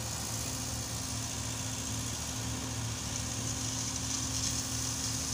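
Ten-wheeler diesel dump truck's engine idling steadily.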